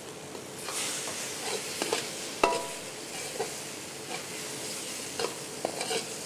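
Steel ladle stirring and scraping masala and boiled eggs around a black iron kadai over a steady frying sizzle, with scattered clinks of metal on metal, one ringing briefly about two and a half seconds in.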